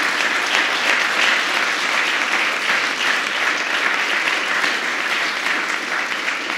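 Audience applauding, many people clapping together.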